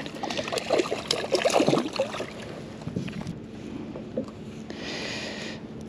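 A hooked porgy (scup) splashing and thrashing at the water's surface beside a kayak as it is swung aboard, busiest in the first two seconds. Near the end, a short scraping rustle as the fish is handled.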